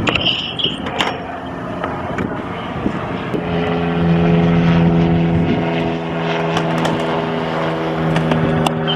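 A steady engine drone, one low hum with several overtones, sets in about three seconds in and holds, over a constant rushing noise; two sharp knocks near the start.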